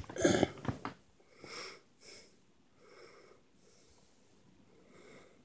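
A man breathing hard and making rough, breathy vocal noises right at the phone microphone: one loud noise in the first second, then about five shorter breaths that grow fainter.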